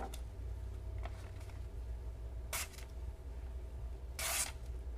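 A folding knife's blade slicing through paper: a brief faint hiss about halfway in and a longer, louder hiss near the end. A low steady hum runs underneath.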